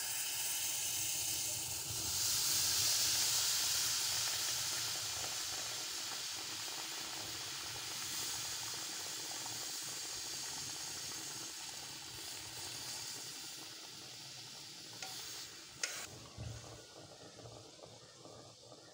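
Milk tea poured into a fire-heated clay pot (kulhad) for tandoori chai, sizzling and hissing as it boils up and foams over. The hiss is loudest in the first few seconds and slowly dies away, with a couple of short knocks about fifteen seconds in.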